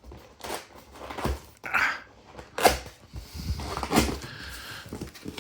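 Cardboard box flaps and packaging being opened and handled: a series of rustles, scrapes and knocks, with two sharp knocks, one near the middle and another a little later.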